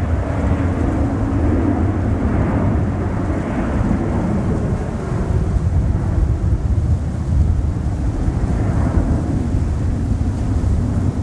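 Jet airliner's engines at takeoff power as it climbs away: a deep, steady rumble whose higher part dies down about four seconds in while the low rumble carries on.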